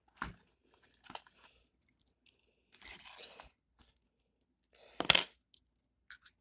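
Small metal clicks and scrapes of a key going into a Hyper Tough deadbolt and turning the lock, the loudest a short rattle about five seconds in.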